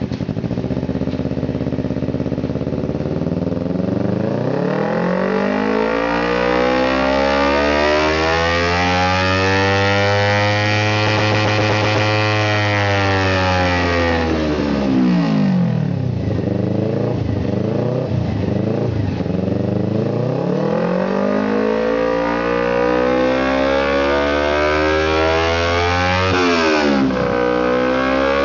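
Engine run through an aftermarket exhaust during a sound test, revved slowly up and held high, let fall back to low revs around the middle, then brought up again, with a quick dip and recovery near the end.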